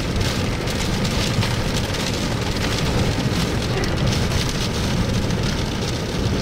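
Strong dust-storm wind blowing hard, gusting to about 65 mph: a steady rushing noise with no break.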